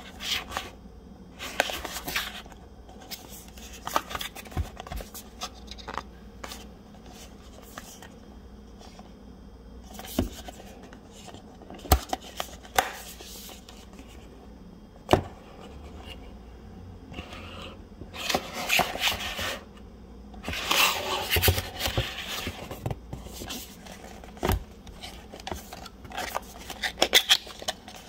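Cardboard product box handled and opened by hand: scattered sharp taps and clicks of the box against the table, and papery sliding and rustling as the box slides open and its flaps and insert card are folded back, busiest in the last third.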